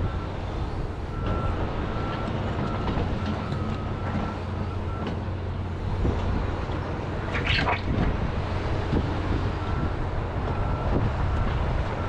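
John Deere 210G excavator's diesel engine running steadily under work, with a repeating beep alarm sounding for the first few seconds and again near the end. A short harsh scrape comes about seven and a half seconds in.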